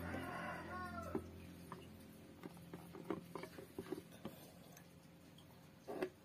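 A cat meowing once, with rising-and-falling tones, over a steady low hum that fades out about a second and a half in. Then scattered light clicks and a short knock near the end.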